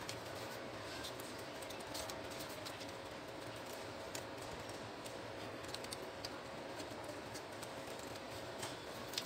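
Scattered light clicks and taps from an Epson TM-U220 printer mechanism's metal frame and plastic flex cable being handled, over a faint steady hum.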